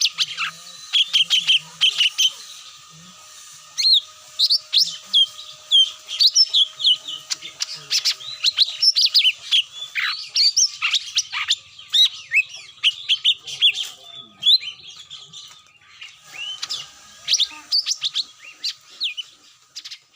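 Lure recording of cucak mini song: a dense run of short, sharp chirps and quick twittering sweeps, several a second, cut off suddenly at the end.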